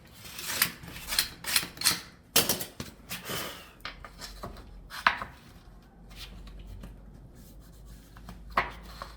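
Wooden flooring boards being handled and worked into place by hand: a run of irregular knocks and clicks, busiest in the first half, then a few single knocks, one sharp one near the end.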